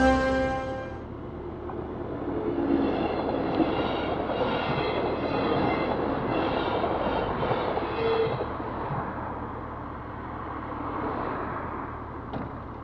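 An orange regional passenger train running past a level crossing close by, the rumble of its wheels on the rails coming in an even repeating pattern as the cars go by, then fading as the train moves off. Background music ends about a second in.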